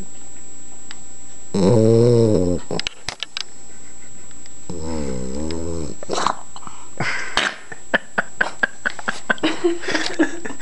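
Boxer puppy giving two drawn-out, low, wavering growling groans, each about a second long, about two and five seconds in, followed by a run of quick sharp clicks in the last few seconds.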